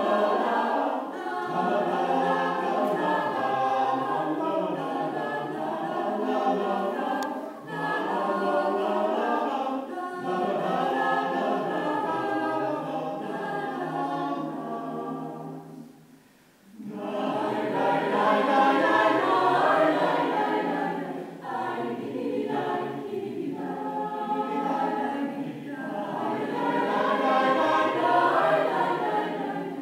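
Mixed choir of female and male voices singing unaccompanied, with a short pause about halfway through before the next phrase begins.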